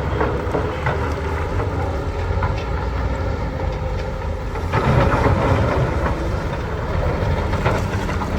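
Diesel engine of heavy earthmoving machinery running steadily, with a few short metallic clanks; it grows louder about five seconds in, as under load.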